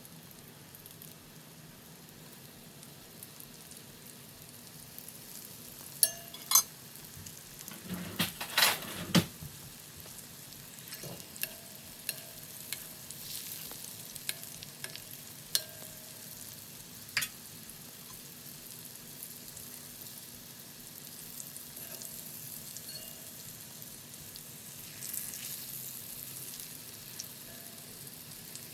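Oil sizzling steadily as battered, flour-coated jackfruit skewers deep-fry. A few sharp clicks break through, the loudest cluster about eight to nine seconds in.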